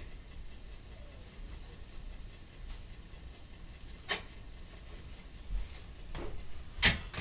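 Quiet room with a steady low hum and faint hiss, broken by two sharp clicks, one about four seconds in and a louder one near the end.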